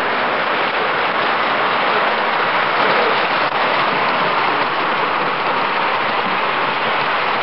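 Steady, even rushing noise of model trains rolling over the layout's track, with no clear knocks or tones standing out.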